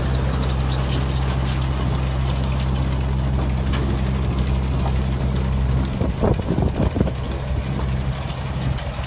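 A machine's engine running steadily with a low hum. About six seconds in the hum changes and a few short knocks and clatters come through.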